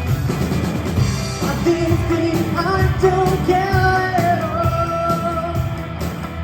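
Live rock band of electric guitar, bass guitar and drums playing a song, with a melody in long held notes over the drums and bass.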